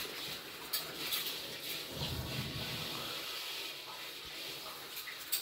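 Coloured pencils scratching on paper as two children colour, with a few light clicks.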